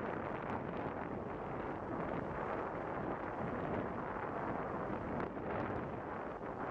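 Steady wind buffeting the microphone on a moving tour boat, mixed with the boat's engine and water noise underneath.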